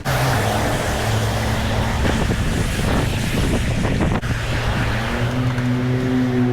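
Wind rush and road noise while cycling, with a motor vehicle's engine hum close by that rises in pitch about five seconds in.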